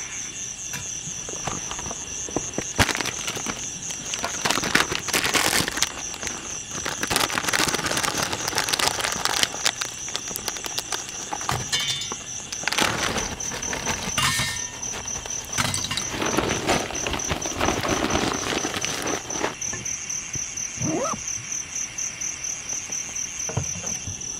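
Crickets chirping in a steady, pulsing high trill, over rustling, crinkling and light knocks as paper and kindling are handled and a fire is lit in a small camp fire pot. A short squeak about 21 seconds in.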